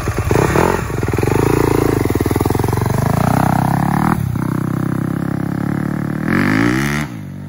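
Yamaha YZ250F four-stroke single-cylinder dirt bike engine revving as the bike pulls away and accelerates. The revs drop briefly about four seconds in, then climb again near the end before the sound falls away sharply.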